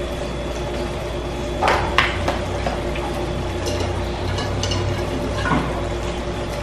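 A kitchen knife and spatula clicking and scraping against a plastic bowl while boiled potatoes are chopped and mixed for potato salad, a few scattered clicks over a steady background hum.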